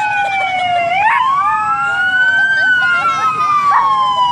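Fire truck siren on a slow wail: falling at first, rising from about a second in to a peak halfway through, then falling again. A small Yorkie-type dog howls along with it, with short sharp calls about a second in and near the end.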